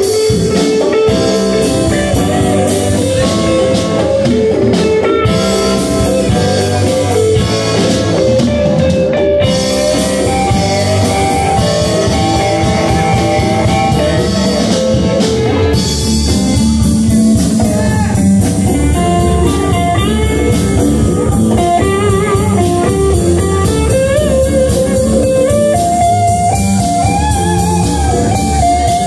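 Live blues-rock band playing: electric guitars, bass and drum kit with steady cymbal beats. About halfway through, a lead guitar takes over with bending, wavering notes.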